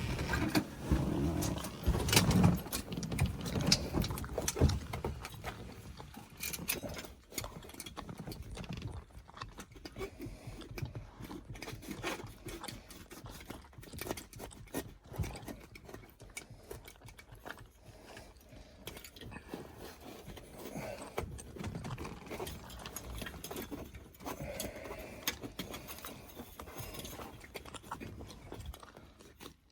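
Scattered clicks, taps and rustling from hands working inside a car's cabin, louder for the first few seconds and then fainter and sparser.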